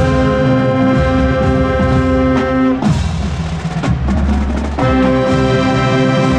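Marching band playing loudly: brass and saxophones hold a sustained chord, break off about three seconds in for a couple of seconds of drums, then come back in on the held chord.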